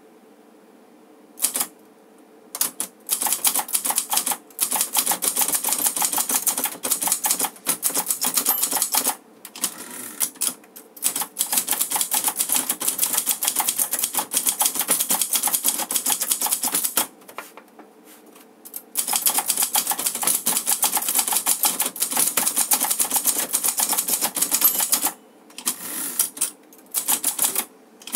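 Clover 747TF Hangul manual typewriter being typed on fast: rapid runs of key and typebar strikes, starting about a second and a half in and broken by a few short pauses.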